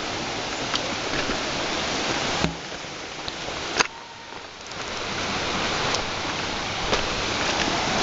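Steady rushing hiss of flowing river water, with a few sharp clicks. The rush drops away abruptly about two and a half seconds in, dips further just before four seconds, then swells back up.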